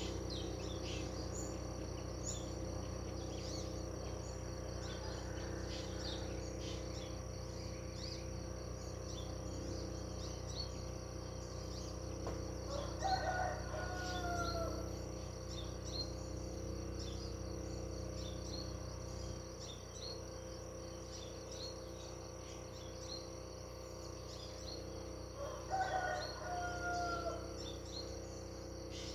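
Rural ambience: a steady insect drone and frequent small bird chirps, with a rooster crowing twice, once near the middle and again near the end.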